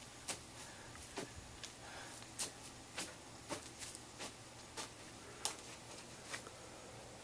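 Faint footsteps on dry grass, about one or two steps a second at a slow, uneven walking pace.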